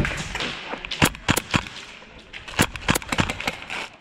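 Airsoft gunfire: sharp single pops and cracks in irregular groups, a cluster about a second in and more shots between two and a half and three and a half seconds.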